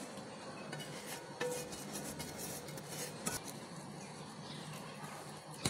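A spoon stirring and mashing potato filling on an enamel plate, with a few sharp clicks and scrapes of the spoon against the plate.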